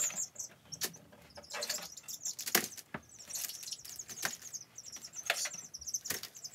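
Four-week-old chicks peeping in short, high chirps as they are handled and set down, with wings flapping and sharp rustles and scratches on the newspaper lining.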